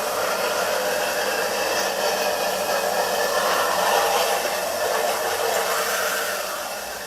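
Electric soy milk grinder motor running steadily with an even whirring rush, easing off slightly near the end.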